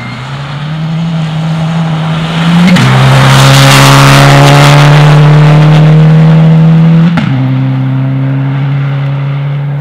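Subaru Impreza rally car driving hard past at close range, its engine holding a steady high-revving note. The note steps down abruptly twice, about three and seven seconds in, with gear changes, and is loudest in between as the car goes by.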